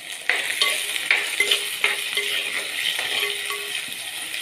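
Chopped shallots, green chillies, garlic, ginger and tomato sizzling in hot oil in a chatti (cooking pot) as they are stirred, with the stirring spoon scraping and knocking against the pot several times over a steady hiss.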